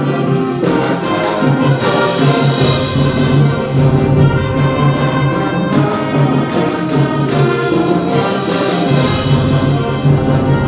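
Instrumental ensemble music with brass to the fore over a repeated, pulsing low note, swelling twice.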